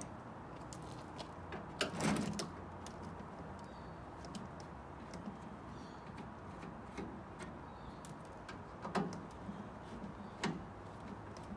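Hand screwdriver backing screws out of a microwave's steel outer case: scattered small ticks and scrapes, with louder knocks about two seconds in and twice near the end.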